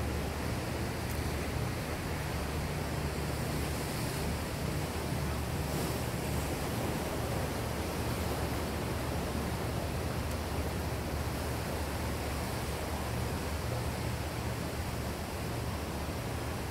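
Sea waves breaking and washing over flat shoreline rocks: a steady rush of surf with a low rumble underneath.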